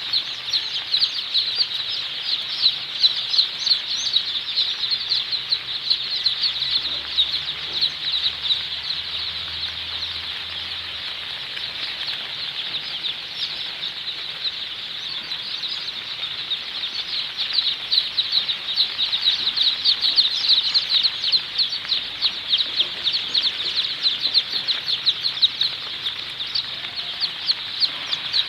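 A large flock of Sonali chicks peeping without pause, many short high chirps overlapping. The chorus thins a little in the middle and grows busier again in the second half.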